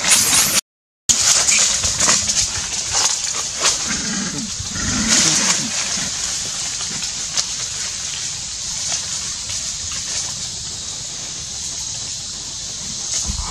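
Monkeys in a tree: a few low calls about four to five seconds in, amid short crackles of leaves and branches, over a steady high hiss. The audio cuts out completely for half a second near the start.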